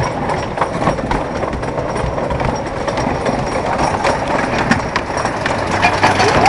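Wooden roller coaster train rolling slowly high up near the crest of its lift, clattering and clacking on the track with many irregular sharp clicks over a steady rumble.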